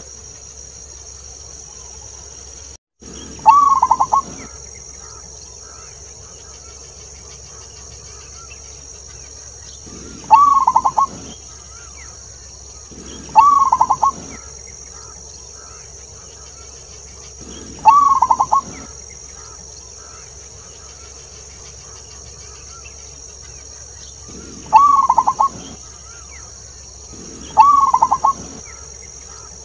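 Zebra dove (perkutut) cooing: six rattling, pulsed coos of about a second each, spaced several seconds apart, over a steady high hiss. The calls are the local wild perkutut's long 'klauww' opening phrase.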